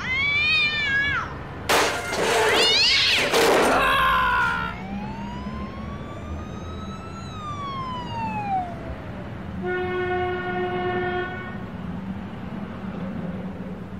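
Wordless cartoon voice sounds: squeaky, meow-like calls that arch up and down in pitch, loudest about two to four seconds in. Then comes one long glide that rises and falls, like a slide whistle, and a steady held tone about ten seconds in, over a faint low hum.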